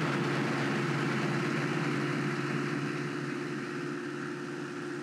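Light aircraft's piston engine and propeller droning steadily in cruise, heard inside the cockpit with a hiss of airflow over it; it eases slightly about three seconds in.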